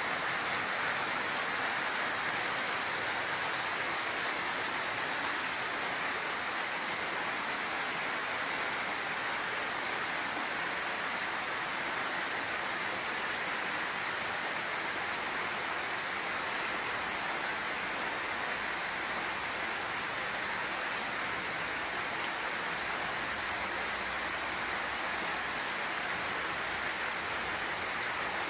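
A steady, even hiss with no distinct events, unchanging in level throughout.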